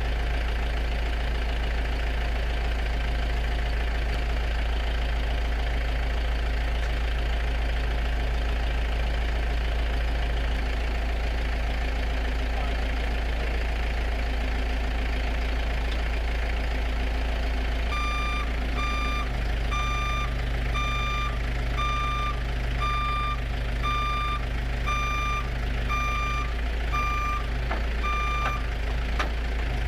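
A steady low machine hum runs throughout. A little over halfway through, an electronic warning beeper joins it, sounding about one and a half evenly spaced beeps a second for about ten seconds, like a reversing alarm.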